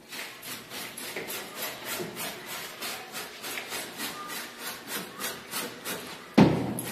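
A hand brush scrubbing back and forth on the wood of an antique vanity in quick, even strokes, about three to four a second, stripping off old paint softened by chemical stripper. A louder bump comes near the end.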